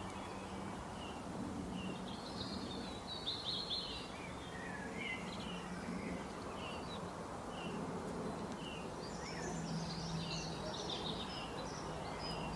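Birds chirping and calling in short, quick notes, busiest a few seconds in and again near the end, over a steady background hiss and a low hum.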